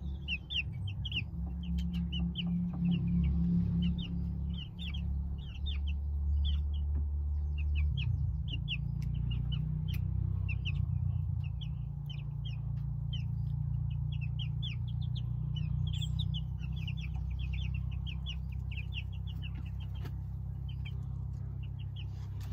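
Young Norfolk Grey chickens peeping: short, high cheeps in quick runs throughout, over a steady low rumble.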